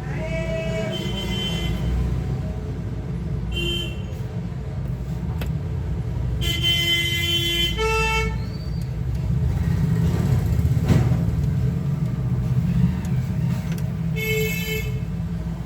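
Road traffic running steadily, with vehicle horns honking several times; the longest honk comes about halfway through.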